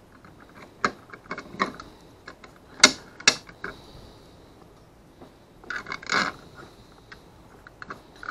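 Small metal hardware clicking and clinking as nuts, bolts and an Allen key are handled against a plastic fish-finder mounting plate, in scattered separate clicks. The loudest clicks come about three seconds in, with another short cluster about six seconds in.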